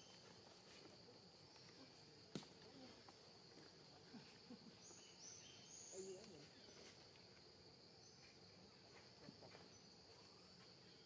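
Faint forest ambience: a steady high-pitched insect drone, with a few short high chirps and one sharp click about two seconds in.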